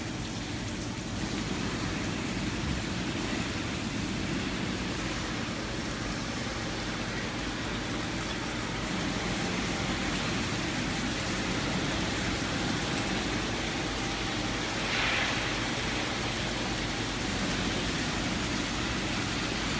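GZC3535 CNC plate drilling machine running a tapping cycle: a steady hiss-like machine noise, with a brief louder hiss about fifteen seconds in.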